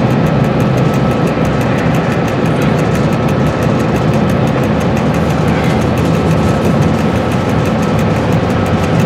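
Dr12 diesel-electric locomotive's engine running steadily, heard from inside the driver's cab as the locomotive rolls along the track.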